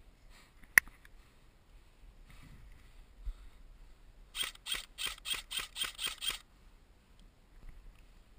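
Airsoft rifle firing a rapid string of about nine semi-automatic shots, about four or five a second, halfway through. A single sharp click comes about a second in.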